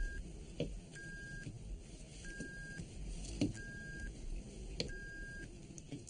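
Electronic beeping: a single high steady tone about half a second long, repeating about every second and a quarter, with a few soft clicks.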